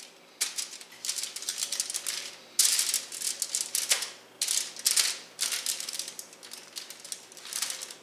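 Aluminum foil crinkling and rustling in irregular bursts as olive-oiled cabbage slices are flipped over and pressed down by hand on a foil-lined baking sheet.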